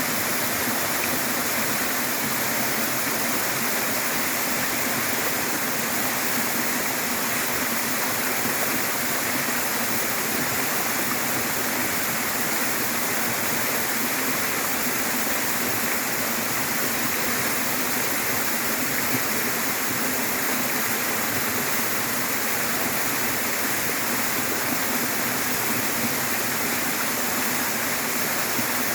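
Waterfall: water falling and splashing in a steady, unchanging rush.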